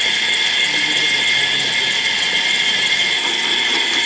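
Metal lathe running with a twist drill in the tailstock drill chuck boring into the spinning workpiece: a steady high whine over the machine's running noise.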